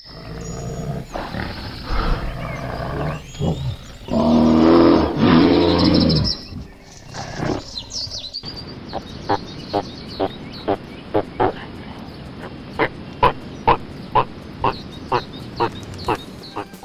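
Wild animal calls: a big cat growling, then roaring loudly about four seconds in. From about halfway on comes a run of short, sharp calls repeated about twice a second.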